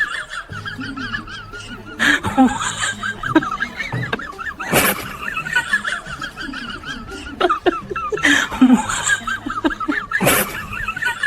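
Laughter going on throughout, broken by four sharp, sudden hits.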